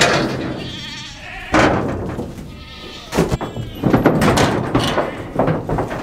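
Livestock giving two wavering bleating calls, the first about half a second in and the second near three seconds, among sharp metallic clanks of a stock trailer's gate and latch being worked.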